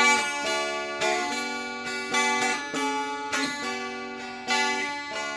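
Mountain dulcimer strummed alone in an instrumental break of a folk song, chords struck about once a second and left ringing.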